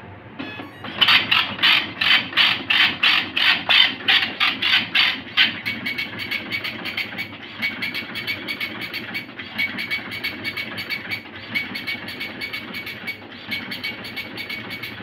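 Olivetti PR2 Plus dot-matrix passbook printer working a sheet through its calibration value print. For the first few seconds it makes loud, regular strokes about three a second, then changes to a quieter, rapid print-head chatter in short runs with brief pauses.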